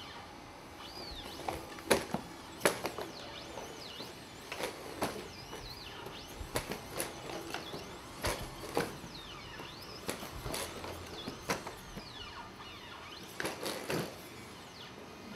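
Boston Dynamics Atlas humanoid robot going through a gymnastics routine: the whine of its hydraulic actuators rising and falling in pitch as it moves, with irregular sharp knocks of its feet landing on the floor.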